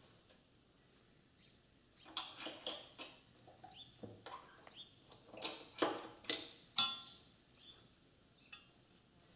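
Metal clinks and knocks, starting about two seconds in, as motorcycle engine, frame and loose bolts and tools are handled and shifted on the bench; the loudest is a bright ringing clink near the seven-second mark, with one more click a little later.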